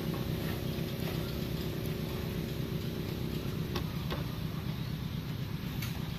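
A steady low mechanical hum, like an engine running at idle, with a few faint light clicks as small bamboo pegs are picked up off a wooden table.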